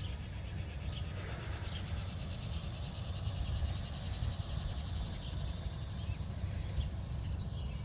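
Outdoor ambience: a high, fast-pulsing insect buzz that swells and then fades after about six seconds, a few short bird chirps, and a low rumble of wind on the microphone.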